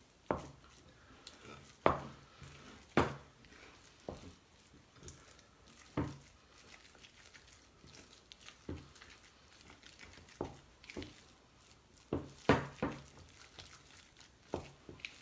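Wooden spoon stirring a thick ricotta cheese filling in a glass bowl, with about a dozen irregular knocks and scrapes of the spoon against the glass. The loudest come about two and three seconds in and in a quick cluster near the end.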